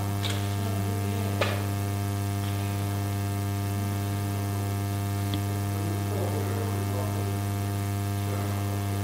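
Steady electrical mains hum with a stack of overtones, and a few faint clicks over it.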